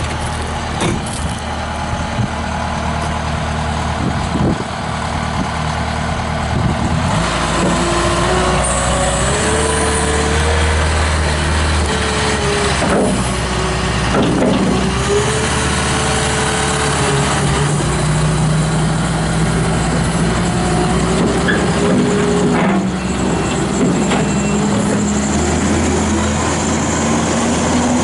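Kubota SVL75-2 tracked skid steer's diesel engine running just after start-up. About seven seconds in it gets louder, and its pitch rises and falls as the machine is revved and worked; near the end it climbs slowly.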